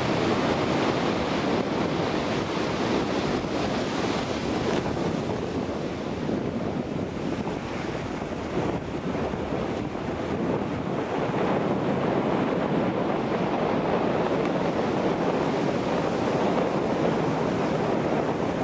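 Steady wind rushing and buffeting over the microphone, with no break.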